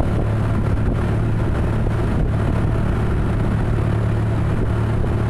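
Steady low engine rumble of road vehicles, with a constant deep hum and no horn sounding.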